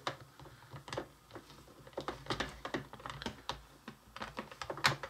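Fingers pressing Play-Doh into a plastic mold tray: small, irregular clicks and taps of fingernails and plastic, with a louder click near the end.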